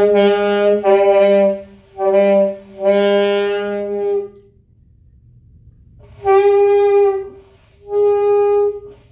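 A beginner playing a saxophone: a string of held notes at much the same pitch, four in the first four seconds, then a pause of about two seconds and two more, practising a newly taught fingering.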